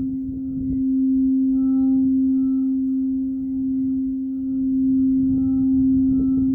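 Singing bowl sounding one steady low tone with fainter wavering overtones, kept going without decay and swelling and easing in loudness every few seconds, as when the rim is circled with a mallet.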